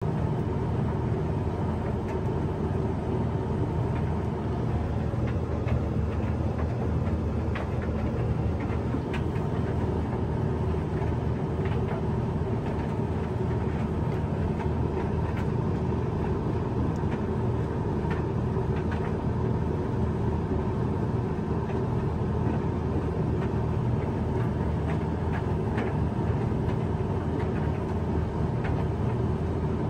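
Hoover dryer running a sensor drying programme on a load of bathrobes: a steady motor and tumbling-drum rumble with faint scattered ticks.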